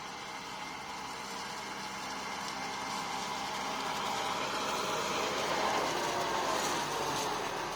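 Tractor engine running steadily and growing gradually louder, with a whine that falls in pitch near the end.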